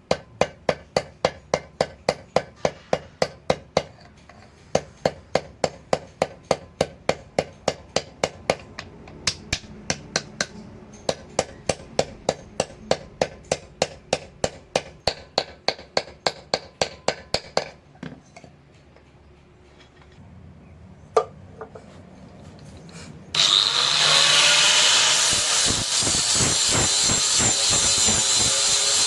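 Hammer striking metal on an anvil, about three ringing blows a second in runs with short pauses. Then, after a lone blow, an angle grinder starts and runs steadily near the end.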